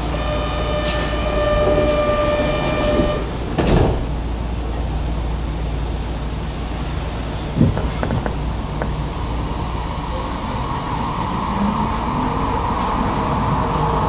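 Subway station platform with a steady low rumble. An electronic tone sounds for about three seconds at the start, with a few sharp clicks. Near the end, a rising whine of subway train motors builds.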